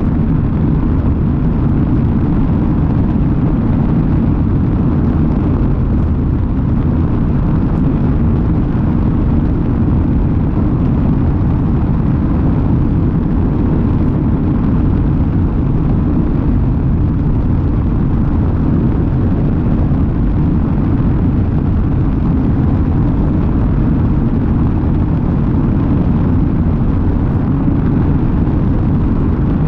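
Steady, loud wind rumble from airflow over an outside-mounted camera in flight, low and even throughout.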